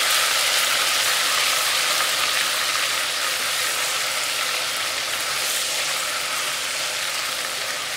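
Ginger-garlic paste sizzling loudly as it fries in hot oil with whole spices in a stainless steel pot, stirred with a spatula; a steady frying hiss.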